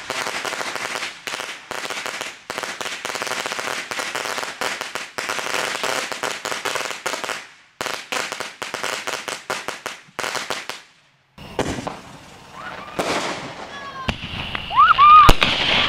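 A ground firework crackling and popping rapidly for about eleven seconds, then cutting off. Near the end a louder stretch follows, with high wavering tones.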